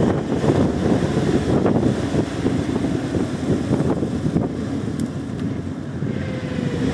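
Wind buffeting the microphone: a rough, fluctuating low rumble.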